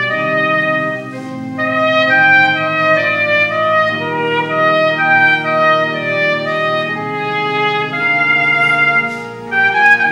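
Trumpet playing a slow melody of held notes over a lower sustained accompaniment, with two short breaks for breath, about a second in and near the end.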